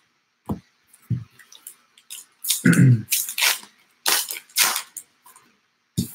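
Baseball trading cards being handled: a few dull knocks as a card stack is set down on the table, and several brief papery swishes as cards are slid and shuffled.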